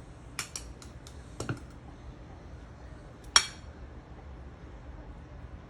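A spoon clinking and knocking against a dish: several light clicks in the first second and a half, then one sharp, ringing clink about three and a half seconds in.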